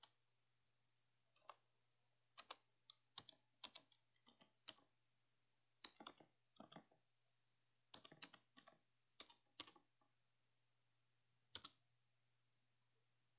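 Faint clicking of computer keyboard keys as a search is typed, in short irregular runs of key presses, ending with a single lone press near the end.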